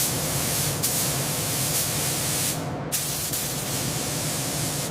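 Steady, loud hiss of a high-pressure spray over a low machine hum. The hiss thins out briefly about three seconds in, then carries on.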